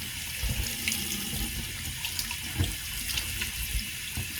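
Water running from a tap into a sink while soap lather is rinsed off hands, with small splashes and knocks.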